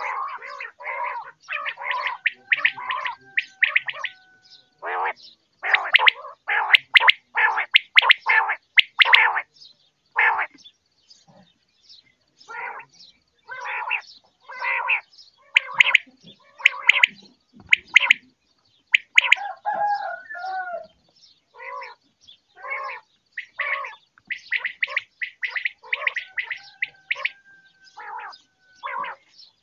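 Quail calling over and over: runs of short, rapid notes several to the second, broken by brief pauses, with a different wavering call about two-thirds of the way through. A call recording of the kind played to lure quail.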